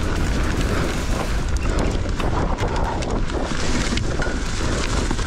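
Mountain bike descending a rough trail at race speed: wind buffets the microphone in a heavy rumble while tyres and the bike's chain and frame rattle, with many sharp knocks from about a second and a half in.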